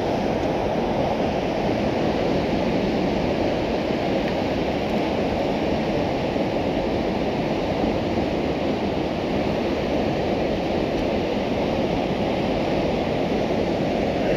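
River rapids rushing over rocks: a loud, even roar of whitewater that does not change.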